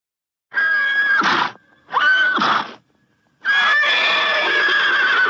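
An equine animal giving three loud whinnying calls. Each is a high, held, shrill tone that breaks down into a lower sound at its end, and the third is longer and runs on past the end.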